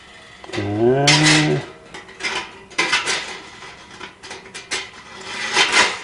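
A man's drawn-out, rising hum about a second in, then a run of light metallic clicks and taps as the thin titanium plates of a Belmont TABI fire pit are handled and slotted together.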